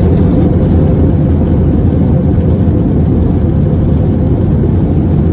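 Loud, steady low rumble inside an airliner cabin as the plane rolls along the runway: jet engine noise and wheel rumble heard through the cabin.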